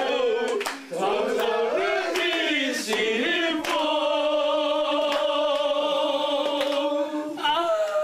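A small group of people singing together unaccompanied, with scattered hand claps. About four seconds in they hold one long, wavering note for about three seconds, then the tune moves on.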